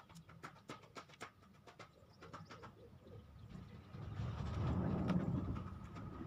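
Bird calls over a scatter of short sharp clicks, then a low rumble swells about four seconds in and eases off near the end.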